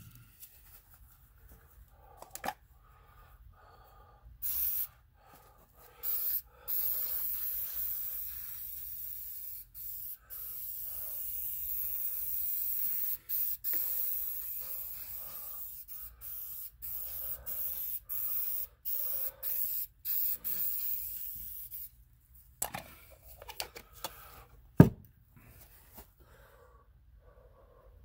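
Aerosol can of 3M 45 spray adhesive spraying in a run of hissing bursts, long and short with brief breaks, from about four seconds in until about six seconds before the end. Near the end comes a single sharp knock on wood.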